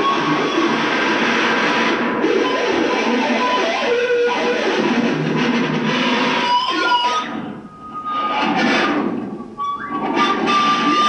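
Loud, noisy distorted guitar music with a held, wavering tone, dropping out briefly twice near the end.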